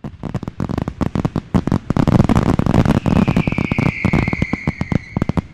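A string of firecrackers going off in rapid, irregular bangs, joined about halfway through by a high whistle that slowly falls in pitch.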